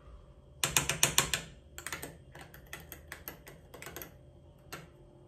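A metal spoon clinking against the inside of a glass while stirring iced coffee: a quick run of clinks about a second in, then slower, scattered taps.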